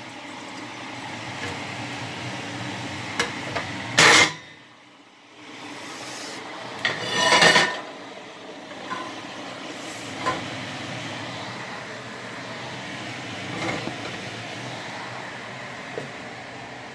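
Steady whir of a kitchen exhaust fan over the stove, broken by a loud clatter of kitchenware about four seconds in and a louder burst of noise lasting about a second a little later, with a few light knocks.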